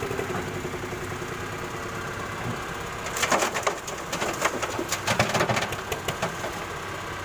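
Excavator engine running steadily. About three seconds in comes a burst of irregular clattering knocks lasting about three seconds.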